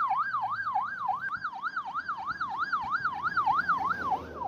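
Electronic ambulance siren in a fast yelp, its pitch sweeping up and down about three to four times a second.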